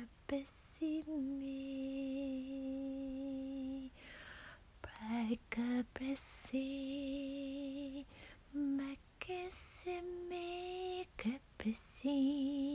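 A woman softly singing an improvised 'light language' song of invented, wordless syllables: long held notes with a slight vibrato, mostly on one low pitch with a higher note near the middle, separated by short breathy sounds.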